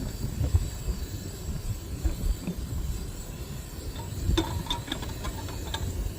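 Wind buffeting the microphone with a gusty low rumble. About four seconds in comes a short run of light clinks and taps as the glass percolator and its parts are handled.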